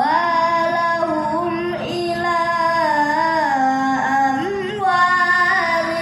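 A woman reciting the Quran in a melodic tilawah style, drawing out long, ornamented held notes that bend up and down in pitch.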